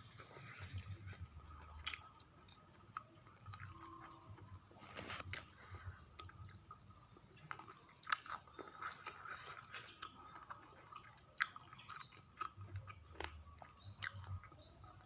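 A person eating close to the microphone, chewing and biting with irregular wet mouth clicks and small crunches, as when chewing spicy chicken feet.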